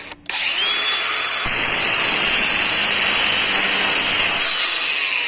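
Craftsman V20 brushless angle grinder with a grinding wheel: it drops out briefly just after the start, spins back up with a rising whine, then grinds into metal with a steady harsh hiss from about a second and a half in.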